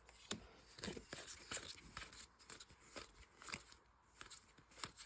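Trading cards being handled: faint, irregular clicks and rustles as cards slide against each other and are set down.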